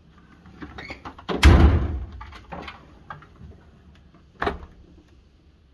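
A steel tool chest drawer on ball-bearing slides rolls shut and closes with a loud bang, its tools rattling in the tray. A few light clicks follow, then another drawer is pulled open and stops with a sharp clack near the end.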